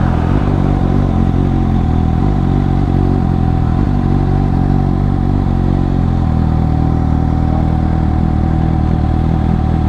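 Suzuki GSX-S750's inline-four engine and exhaust running at a steady low speed with no revving, a thin steady whine over it.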